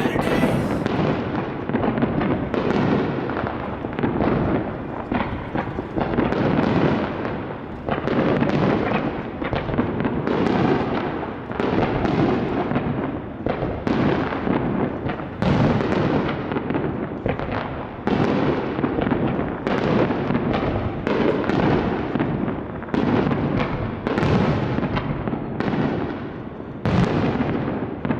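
Aerial fireworks bursting in a dense barrage. Big booms come every second or two, each one trailing off, over continuous crackling.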